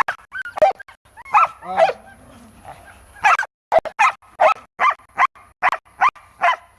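Hunting dog barking over and over, about two or three sharp barks a second through the second half, with a few drawn-out whining yelps about one and a half seconds in.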